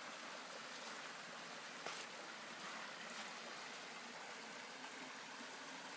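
Small creek waterfall, a steady rush of water spilling over rocks, with a brief faint click about two seconds in.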